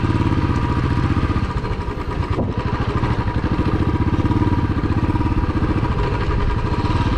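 Royal Enfield Classic 350's single-cylinder motorcycle engine running steadily, its firing pulses an even, rapid beat.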